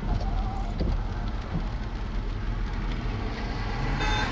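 Steady low rumble of an idling vehicle engine under a constant hiss of wind and rain noise.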